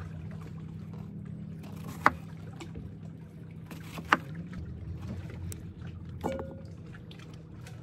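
Chef's knife chopping cucumber on a wooden log-slice cutting board: two sharp knocks of the blade on the wood about two and four seconds in, with a few fainter ticks, over a steady low hum.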